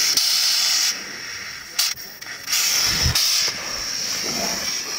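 Oxygen hissing from a regulator being fitted to a climbing oxygen cylinder, as the flow is checked. The hiss comes in two loud spells, at the start and around the middle, with a sharp click between them.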